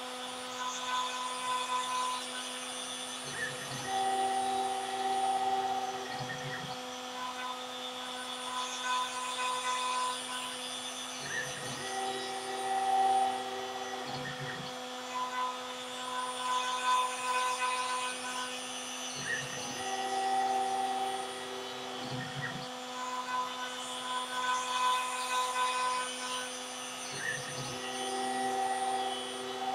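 A CNC router's 1 kW milling motor runs steadily with a constant whine while its surfacing bit faces the top of an end-grain hardwood board. The axis drives add a higher tone on each pass, starting and stopping with a short low thud in a cycle that repeats about every eight seconds.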